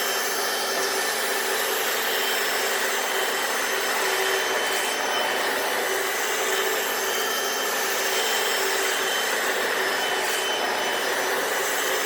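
Hoover FloorMate wet floor scrubber running steadily, its suction motor and brushes working over a stained garage floor, a continuous rushing noise with a steady motor whine.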